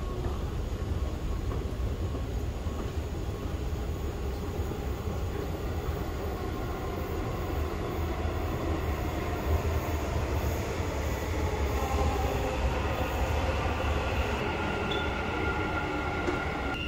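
Low, steady rumble of a Dubai Metro train moving through the underground station, growing louder after the halfway point. Near the end, a thin, high wheel squeal begins.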